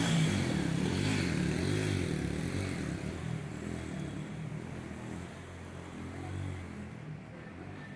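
A motor vehicle's engine running, its pitch wavering up and down, with a hiss over it that fades after about three seconds.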